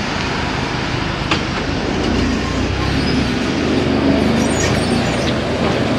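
A vehicle driving, with steady engine rumble and road and wind noise from inside the car.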